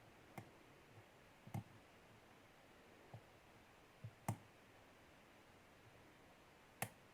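Faint, scattered clicks of a lock pick working the pins of a Master Lock lockout-tagout padlock's six-pin, spool-pin cylinder during single-pin picking. About seven small clicks come at uneven intervals, the loudest about four seconds in and another near the end.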